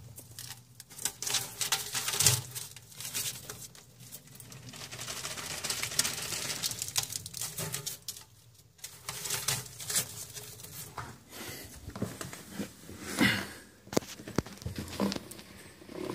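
Irregular rustling, light pattering and small clicks on the newspaper lining of a glass reptile tank as a bearded dragon and loose feeder crickets move over the paper, with a louder rustle near the end.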